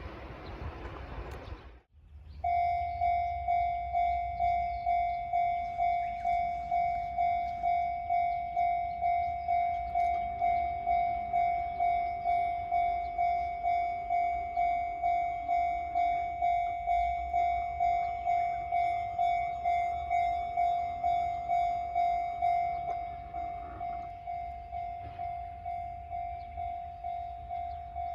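Japanese level-crossing electronic warning bell ringing: a steady repeating ding, about three strikes every two seconds, which drops to a lower volume about 23 seconds in. Before the bell starts, a rushing noise cuts off abruptly about two seconds in.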